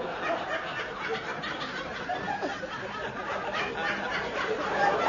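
A theatre audience laughing after a joke's punchline, many voices together.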